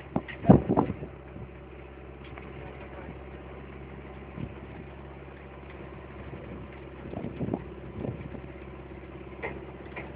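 Vehicle engine running steadily, heard from the open back of the moving vehicle, with a few short louder knocks near the start and again about seven to eight seconds in.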